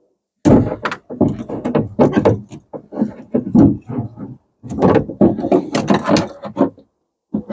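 Runs of knocks, clicks and rattles as an Audi TT RS door lock module is worked back into place inside the door, with short pauses about half a second in, near the middle and just before the end.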